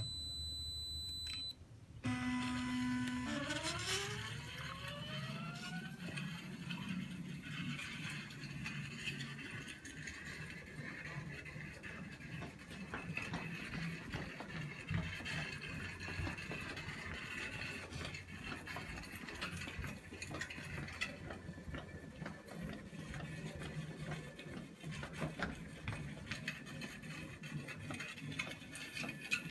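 A Raspberry Pi Mouse robot beeps with a high, steady tone for about a second and a half. Its stepper motors then start with a low hum and whine upward in pitch over a few seconds as it accelerates. The whine then holds steady, wavering slightly, as it drives in a straight line, with scattered light clicks.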